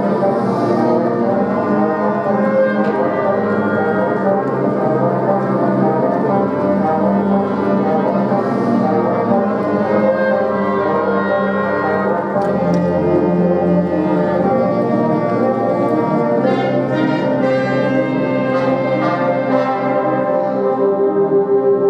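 Music played by brass instruments, with full chords of held notes.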